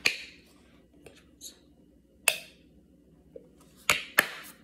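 Plastic ketchup squeeze bottle squeezed upside down, spluttering out ketchup and air in four short, sharp spurts, two of them close together near the end.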